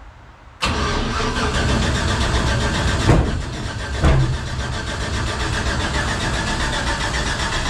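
Race car engine with a freshly welded, short open exhaust (manifold into a single pipe) starting up about half a second in, then running loud and steady. There are two short louder surges about three and four seconds in.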